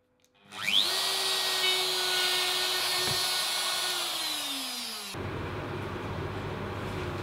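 Power drill spinning up with a rising whine, running steadily while the bit bores a small hole through a wooden board, then winding down with a falling pitch about four seconds in. After that, a quieter steady hum.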